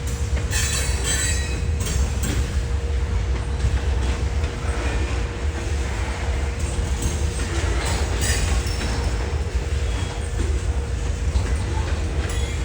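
A train running past on the rails with a steady low rumble and a constant hum. Brief high wheel squeals come about a second in and again around eight seconds in.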